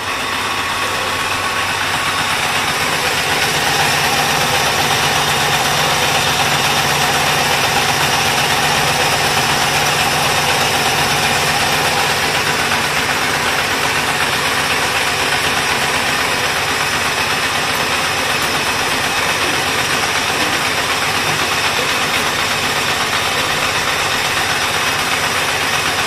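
High-speed wire harness braiding machine running, its bobbin carriers circling: a loud, steady mechanical noise with several whining tones in it.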